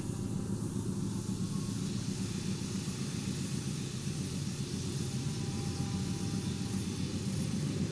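Distant train, heard as a steady low rumble that carries across the valley.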